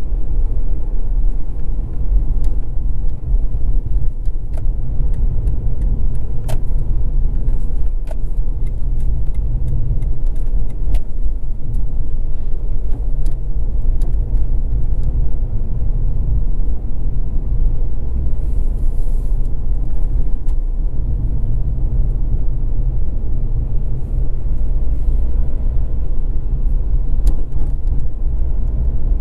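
Mazda RX-8 driving at town speed: a steady low rumble of engine and road noise, with a few faint ticks.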